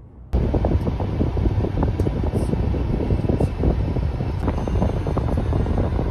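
Steady rush of road and wind noise from a car driving at freeway speed, heard from inside, cutting in suddenly about a third of a second in.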